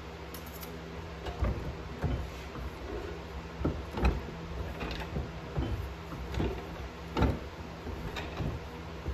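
Manual slip roll rolling a sheet-steel cone section: irregular metallic clunks and knocks from the rollers and the sheet, about two a second, over a steady low hum.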